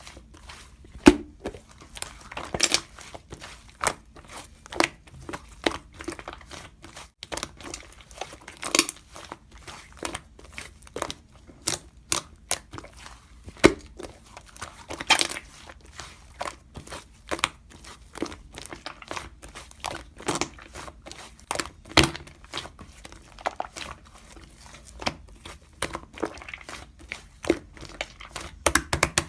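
Slime being kneaded and squeezed by hand, giving a dense run of irregular clicking and popping crackles.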